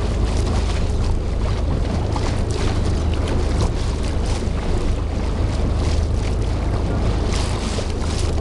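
Boat engine running as a steady low rumble, with wind gusting across the microphone and water splashing around the hull.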